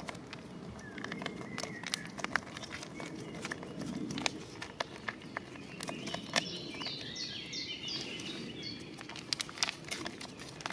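Scattered small clicks and crinkles from foil ration packets and crackers being handled. A bird sings a quick run of descending chirps about six to eight seconds in.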